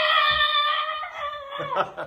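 A high voice holding one long drawn-out 'ooh' on a steady note, breaking off about a second and a half in.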